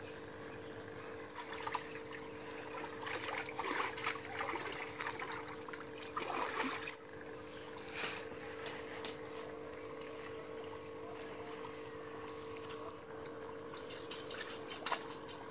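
Water splashing and trickling as a person wades in a concrete fish tank and lifts a mesh net out of the water, in two spells with a few sharp clicks between them. A steady low hum runs underneath.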